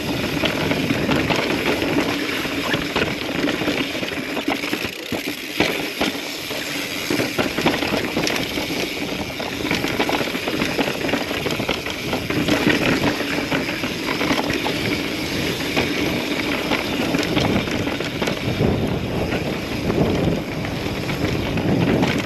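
Mountain bike riding over rough sandstone and rock: a steady rush of tyre and ride noise with frequent knocks and rattles as the bike goes over ledges and rocks.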